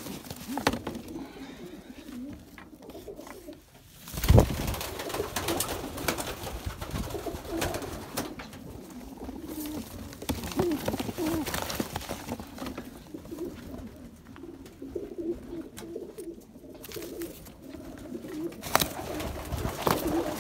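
Domestic pigeons cooing again and again, with a single loud knock about four seconds in.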